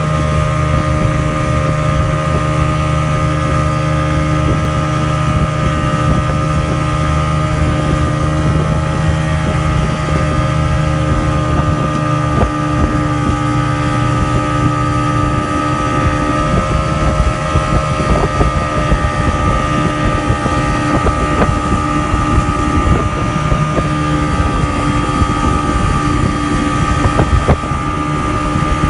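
Engine of the motorboat towing a banana boat, running steadily at speed. Wind buffets the microphone, heavier from about twelve seconds in.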